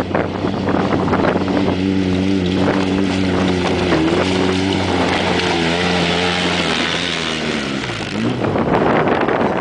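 Polaris RZR S side-by-side's engine revving as it climbs a rocky trail toward the microphone. Its pitch rises and falls with the throttle and drops away as it passes close by near the end. A rough hiss covers the start and end.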